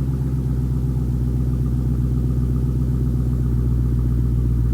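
Dodge SRT Hellcat's supercharged 6.2-litre Hemi V8 idling loud and steady just after start-up.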